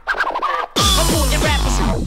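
Fast hard dance music from a DJ set: a brief break with a few short chopped sounds, then about three-quarters of a second in the full mix drops back in with a pounding kick drum at about four beats a second.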